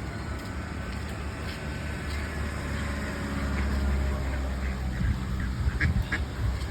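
Ducks quacking, with two clear calls close together near the end, over a steady low rumble.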